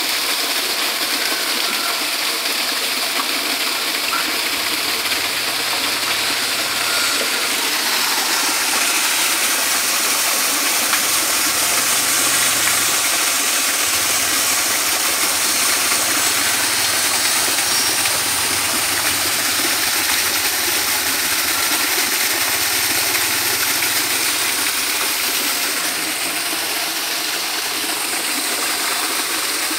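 Small waterfall splashing steadily into a pool: an even rushing of falling water.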